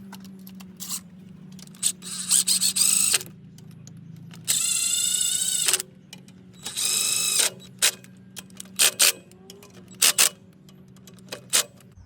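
A power tool whirring in two bursts of about a second each, driving bolts home during an alternator install, with a shorter burst of rapid ratchet clicking before them and scattered sharp metal clinks of tools and fasteners. A low steady hum runs underneath.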